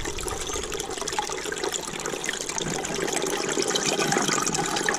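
Gravity-fed spring water running in steadily from a pipe inlet and splashing into the water in a plastic sediment bucket, the flow at well over 5 gallons a minute.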